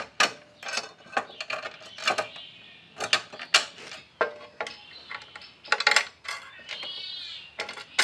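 Steel brackets and bolts clinking and clicking against the sheet-metal radiator grille panel of a Series 1 Land Rover as a slotted bracket is set in place and bolts are pushed through, with a short metal scrape near the end.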